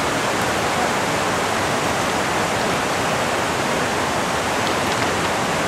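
Fast mountain stream rushing over rocks in whitewater: a steady, even roar of water.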